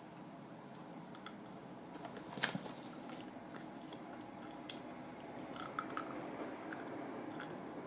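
A person biting and chewing frozen fruit, with scattered sharp crunches and cracks; the loudest crack comes about two and a half seconds in.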